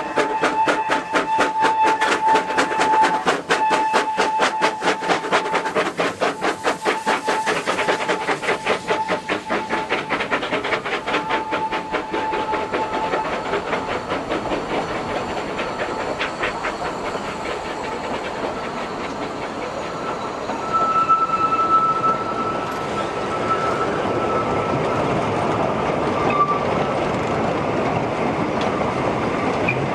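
Two narrow-gauge 2-6-2T steam tank locomotives working hard uphill, their exhaust beats coming fast and even as they pass, with a steady high note on and off over the first dozen seconds. The beats fade after about twelve seconds into the rolling clatter of the coaches and loaded wagons going by, with a brief wheel squeal about twenty-one seconds in.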